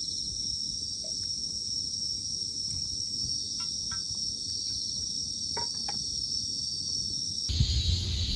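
Steady, even chorus of crickets and other night insects. Near the end it cuts abruptly to louder wind noise on the microphone.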